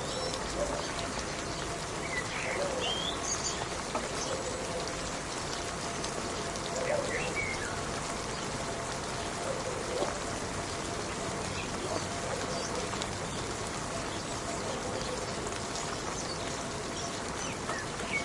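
Steady rain falling, an even hiss of drops, with a few short bird chirps scattered through it.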